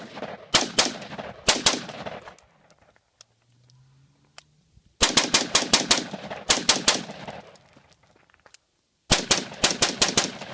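Adams Arms gas-piston AR-15 rifle in .223 Remington fired rapidly in quick strings: a few shots, a pause, a fast string of about eight shots about five seconds in, another pause, then about five more near the end. The rifle feeds and cycles through the magazine without a hitch.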